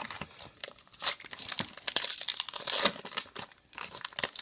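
A trading-card pack wrapper being torn open and crinkled, a quick run of crackles that is densest in the middle.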